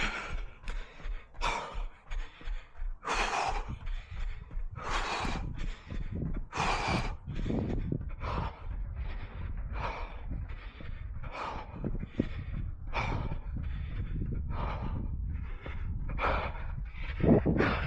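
A runner breathing hard in a steady rhythm, one loud noisy breath roughly every second, over a constant low rumble.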